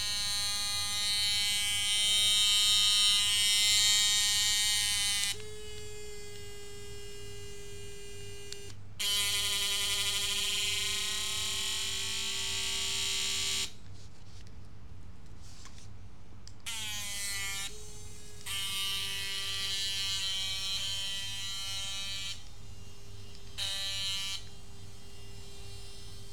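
Ladybug bristlebot's tiny vibration motor buzzing as the robot scuttles across a tile floor. The buzz keeps changing, louder and rougher for a few seconds at a time, then quieter, with shifts in pitch and a brief wavering glide about two-thirds of the way through.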